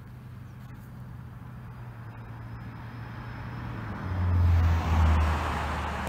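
A motor vehicle passing by: a low engine hum with tyre noise that builds gradually, is loudest about four to five seconds in, then begins to fade.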